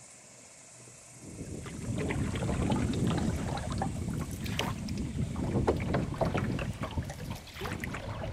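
Wooden canoe paddle stroking through lake water, with repeated splashes and drips, starting about a second in; wind rumbles on the microphone underneath.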